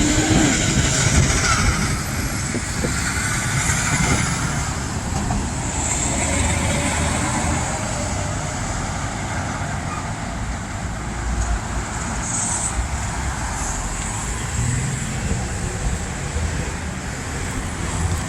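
Steady road traffic noise from cars and trucks passing through an intersection, a little louder in the first couple of seconds.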